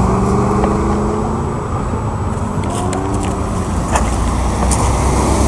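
Audi R8 engine accelerating away, its pitch climbing in a few successive rises, with a few sharp clicks and a low rumble growing near the end.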